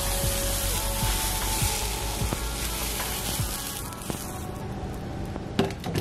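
A hot frying pan sizzling as a fried egg is slid out of it onto a plate; the sizzle fades away about four seconds in, followed by a couple of sharp clicks near the end.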